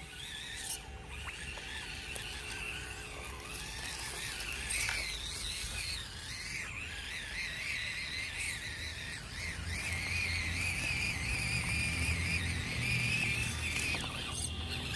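FMS Atlas 1:18 6x6 RC crawler truck driving on dirt: a high wavering whine from its small electric motor and gears, with a low rumble building about two-thirds of the way through.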